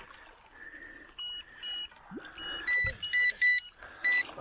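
Electronic carp bite alarms beeping in short, steady tones at two or three different pitches: a couple of single beeps, then a quicker run of beeps in the middle, set off by line movement on the rods. Faint water splashing underneath.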